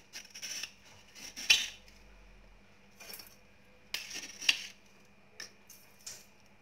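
Spoonfuls of granulated sugar being tipped into a stainless steel saucepan: several short rustling pours, each with a light clink of the metal spoon against the pan.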